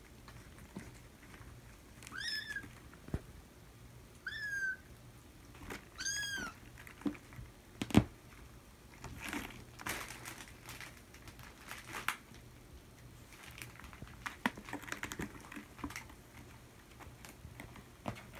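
Kittens giving three short, high-pitched meows in the first six seconds, then a sharp knock and a run of scattered clicks and scratches as they scrabble and climb on a sisal cat scratcher.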